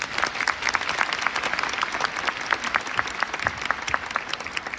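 Audience applauding: many hands clapping densely together, thinning slightly near the end.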